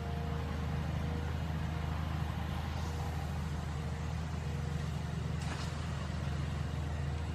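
Steady low hum of an idling engine, with one faint brief rustle about five and a half seconds in.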